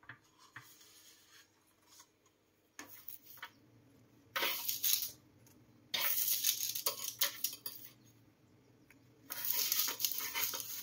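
Metal fork scraping and clinking against a parchment-lined baking tray, with the paper rustling, as baked chebbakia pastries are prised off. Light clicks at first, then three scraping bursts of a second or two each.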